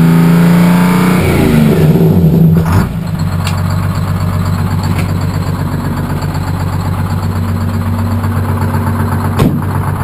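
1959 GMC truck's supercharged two-stroke Detroit Diesel held at high revs, then the revs fall away over about two seconds with the Jake brake switched on, and it settles to a steady idle. A single sharp knock near the end.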